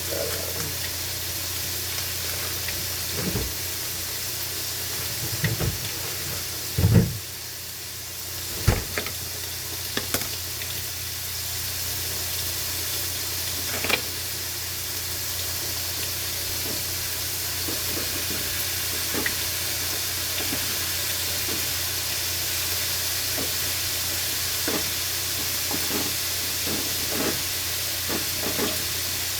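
Chicken frying in a pan, a steady sizzling hiss, with a few scattered knocks and clunks, the loudest two thuds about seven and nine seconds in.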